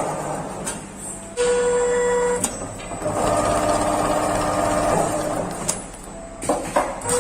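Automatic stitch tufting sewing machine tacking a round cushion. Its motors run in stretches, with a steady whine a second or so in, and sharp mechanical clicks between the moves and several more near the end.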